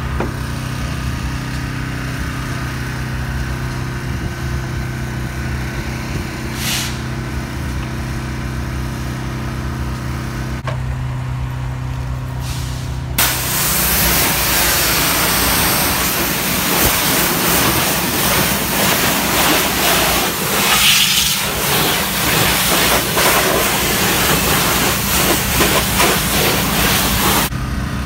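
A steady engine hum; about halfway through, a loud, even hiss of a pressure washer's water jet spraying the truck's hood starts and holds until it cuts off just before the end.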